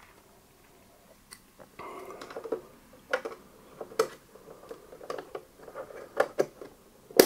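Scattered light clicks and taps of hands working at the battery compartment inside a biometric pistol safe, over faint rustling, with one sharper click near the end.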